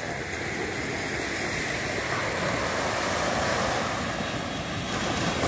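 Small waves breaking and washing up on a beach: a steady rush of surf.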